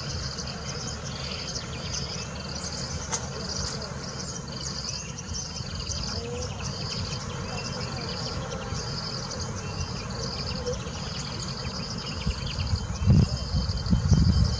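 Insects chirping in an even rhythm, about two high chirps a second, over a low steady rumble, with a few louder low thuds near the end.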